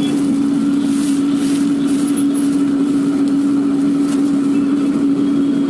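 Street-food stove firing steadily under a kadhai: a constant rushing roar with a steady low hum.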